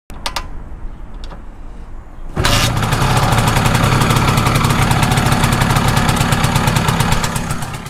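Vespa scooter engine running quietly with a few sharp clicks, then suddenly much louder at about two and a half seconds. It holds a loud, steady run with a fast, even pulse.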